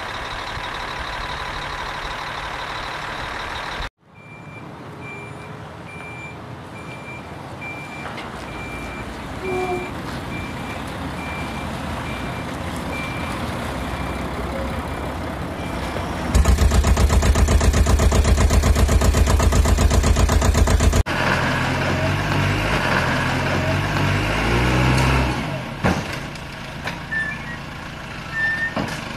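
Heavy-vehicle engine and reversing-alarm sounds. A truck engine runs steadily, then cuts off suddenly about four seconds in. A reversing beeper then beeps steadily over a quieter engine for about ten seconds. A loud diesel engine with a fast, even pulse follows, and then an engine that rises and falls unevenly.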